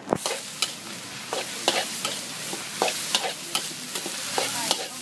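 Metal spatula scraping and clanking against a steel wok, about two strokes a second, as fried rice is stir-fried over high heat with a steady sizzle underneath.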